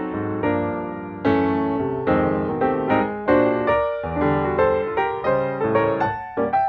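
Piano music: chords and melody notes struck and left to fade, a few per second, with no speech over them.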